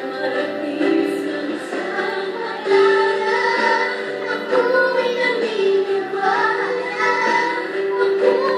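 A young girl singing into a toy microphone, along with backing music.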